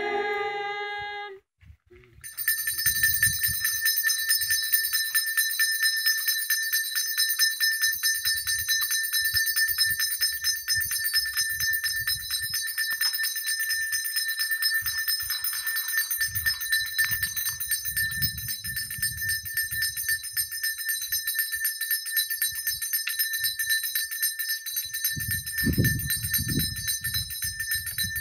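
Altar bell shaken rapidly and without pause, a continuous high jingling ring that starts about two seconds in after a short hush: the bell rung at the benediction with the Blessed Sacrament.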